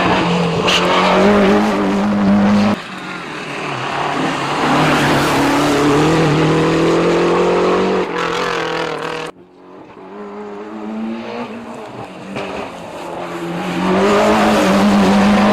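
Rally cars racing flat out on a stage, engines revving hard and climbing in pitch through the gears. The sound changes abruptly twice, about three and nine seconds in, as different cars take over.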